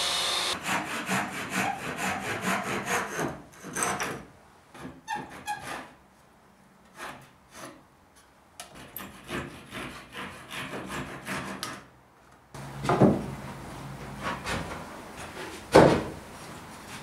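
Handsaw cutting a pine board in runs of quick back-and-forth strokes, with short pauses. Near the end come two louder single knocks of wood.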